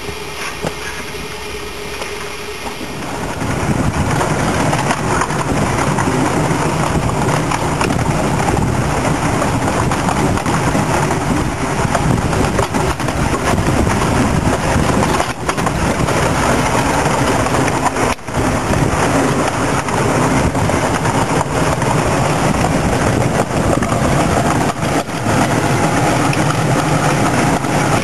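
Steady, loud running noise of a ride aboard a 7¼-inch gauge miniature railway train moving along the line. It starts about three seconds in after a quieter stretch.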